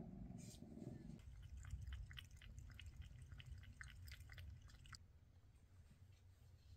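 Maine Coon kitten lapping water from a stainless-steel bowl: quick, small wet clicks, about four a second, that stop abruptly near the end.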